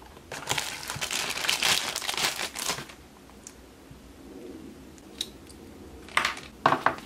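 Plastic packaging crinkling as a power cord and bubble-wrapped adapter are handled out of their box: rustling for the first few seconds, fainter in the middle, then two short, loud crinkles near the end.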